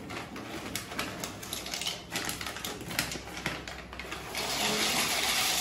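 Plastic pasta packet crinkling and crackling in the hands as it is opened, then dry pasta pouring out of the bag into a pot of water as a dense rushing rattle for the last second or so.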